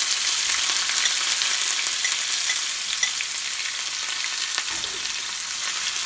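Coconut pieces frying in hot coconut oil in a small cast-iron skillet: a steady sizzling hiss with scattered faint ticks, stirred with a spoon. The sizzle eases a little toward the end.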